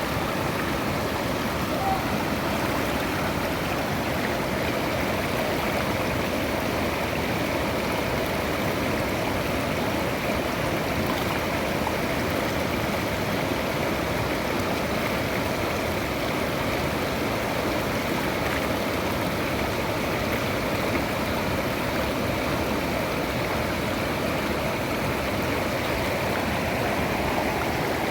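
Waterfall and the stream below it, water rushing steadily without a break.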